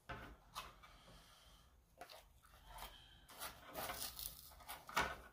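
Faint rustling and scraping as a subwoofer's paper cone is handled and a shiny layer is peeled off it, a series of short irregular scratches, with a sharper knock near the end.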